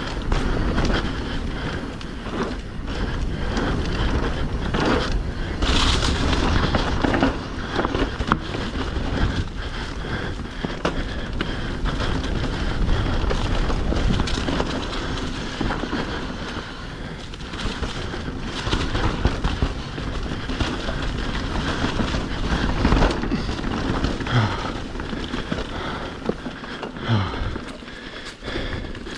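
Mountain bike ridden down a rough dirt trail: tyres rolling, with a steady rush of noise and many sharp knocks and rattles from the bike over bumps.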